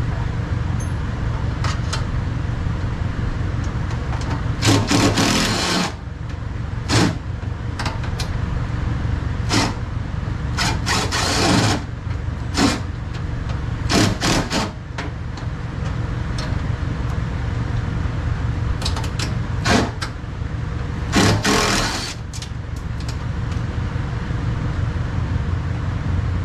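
Metal clicks, clinks and short rattling scrapes of a wrench on bolts and the window regulator inside a pickup's door shell, with three longer rattles about 5, 11 and 21 seconds in. A steady low hum runs underneath.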